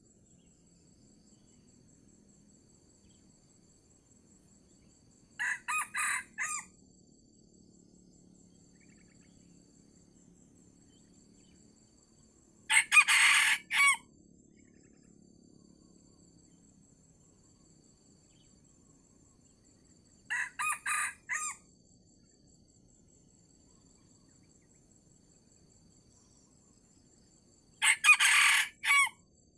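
Red junglefowl crowing: four short, clipped crows about seven seconds apart, alternately fainter and louder.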